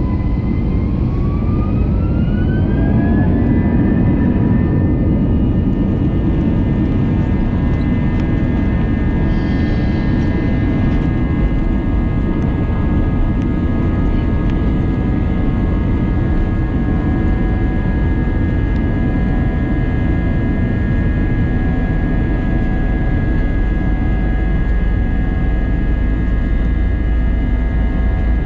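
Airbus A321's turbofan engines heard from inside the cabin, spooling up with a rising whine over the first few seconds to takeoff thrust. A steady high whine then holds over the heavy rumble of the takeoff roll.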